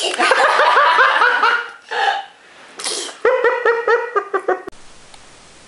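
Baby laughing in two long runs of rapid giggles, with a short breathy burst between them. The laughter cuts off abruptly about a second before the end.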